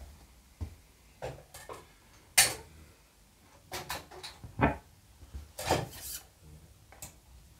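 Scattered clicks, knocks and rubbing from hands working the turntable and controls of an RGD 746 radiogram while a record is put on, the sharpest knock about two and a half seconds in.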